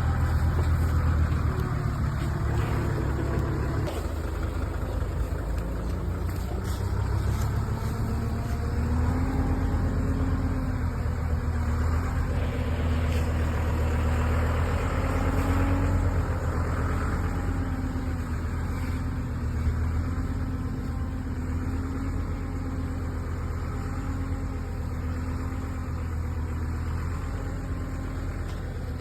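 Heavy forestry machine's engine running steadily, with a faint steady whine joining in about nine seconds in.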